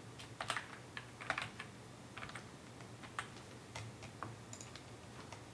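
Typing on a computer keyboard: a run of quick, irregular keystroke clicks as a filename is typed.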